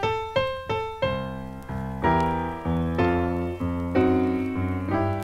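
Instrumental piano intro of a song: a few single notes struck one after another, then from about a second in, rhythmic chords over a bass line.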